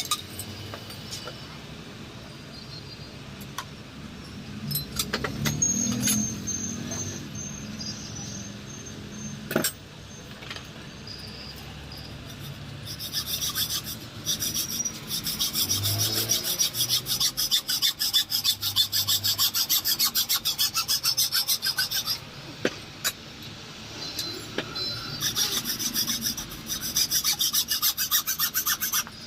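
Hand tool rasping on metal in rapid, repeated strokes, in two long bouts with a pause between, as the shock absorber is worked on.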